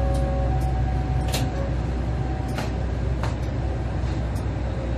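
Steady low engine rumble of a stationary train idling, with a few short sharp clicks about a second and a half, two and a half, and three seconds in.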